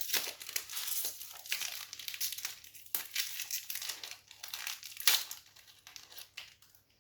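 Plastic snack packet of Oreo biscuits crinkling and rustling as it is handled and opened, with a loud crackle a little after five seconds in.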